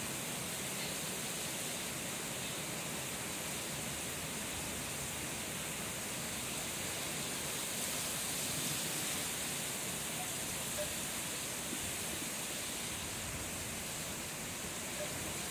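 Heavy rain falling in a steady downpour.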